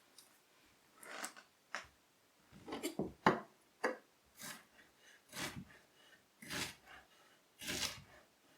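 Kitchen knife slicing a strawberry: a series of short cuts, roughly one a second.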